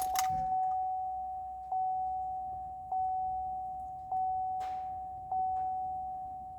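Pickup truck's dash warning chime with the key on: one ringing tone repeated a little over once a second, each ding fading out before the next. A brief faint rustle comes about two-thirds of the way through.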